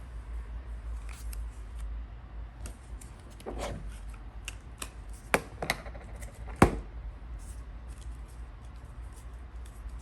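Small clicks and light rustles of plastic Play-Doh toy parts being handled and opened, with two sharper clicks a little past the middle.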